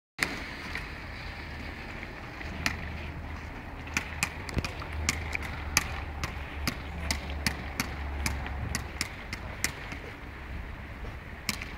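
A kayak polo ball tossed and caught, giving sharp slaps and taps against hands and paddle at irregular intervals, about twenty in all, over a steady low rumble.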